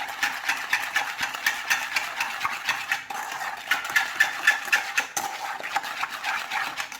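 A metal utensil stirring quickly in a bowl, a fast rhythmic scraping and clinking against the sides, as cornstarch, sugar and a little lemon juice are worked into a smooth paste so the starch won't form lumps.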